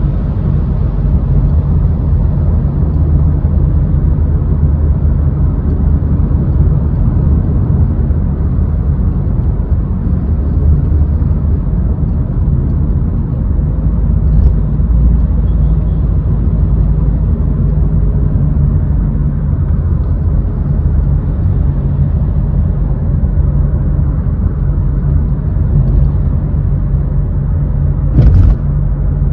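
A car driving: a steady low rumble of engine and road noise with a faint, even engine hum. A single short knock comes near the end.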